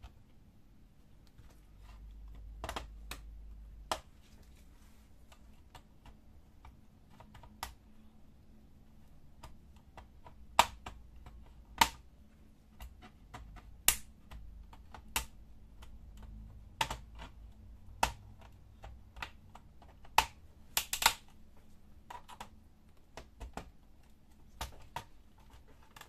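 Plastic snap clips of a Dell Inspiron 15 3573 laptop's bottom panel clicking loose as a pry tool works along the case edge. A series of sharp, irregular clicks, with the loudest coming in the middle and a quick cluster of them near the end.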